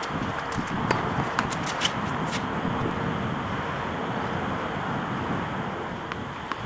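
Outdoor tennis-court ambience: steady background noise with a scatter of sharp taps from play on the hard court during the first two and a half seconds, then only the steady noise.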